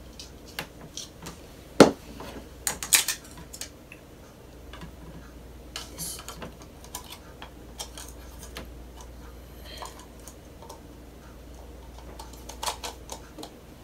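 Hard plastic toy egg being twisted and pried apart by hand: a sharp plastic snap about two seconds in, a quick cluster of clicks just after, then scattered lighter clicks and taps, with another small burst of clicks near the end.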